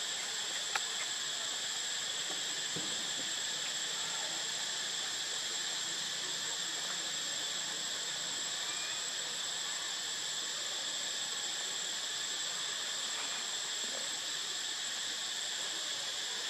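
Steady high-pitched drone of forest insects, an even whine that holds without a break, with a single faint click about a second in.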